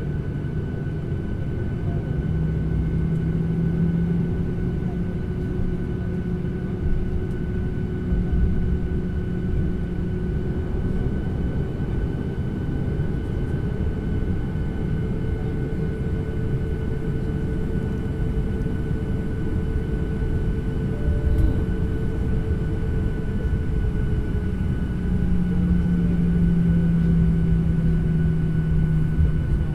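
Airliner engine and airflow noise heard inside the passenger cabin: a steady low rumble with a constant hum, the low drone swelling briefly early on and again near the end.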